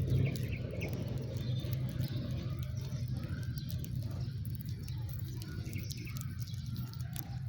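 House sparrows chirping in short, scattered notes over a steady low hum.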